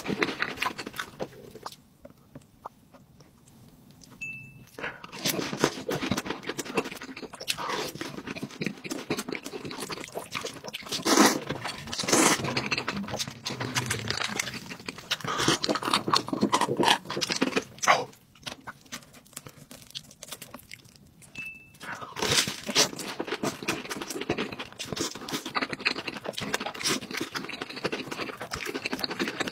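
Close-miked eating sounds: a person chewing and biting food, with wet mouth clicks and crunching, as noodles and a cheese-coated fried corndog are eaten. It breaks off into two short lulls, one a couple of seconds in and one a little past the middle.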